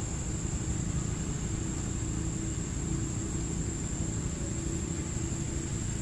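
Steady low rumble of outdoor background noise, with a thin constant high-pitched whine above it.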